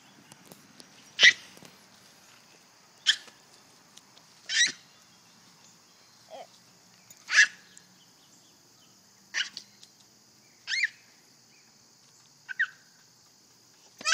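Large black dog barking repeatedly: about eight short barks, one every second and a half to two seconds.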